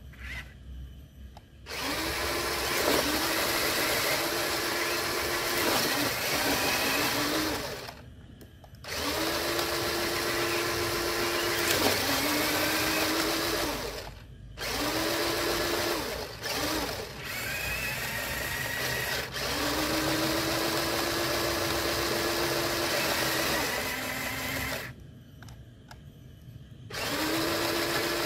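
Electric motors and gear drives of toy RC trucks whining under load in mud, in long bursts of throttle with short pauses between. Each burst rises in pitch as it starts and falls away as it stops.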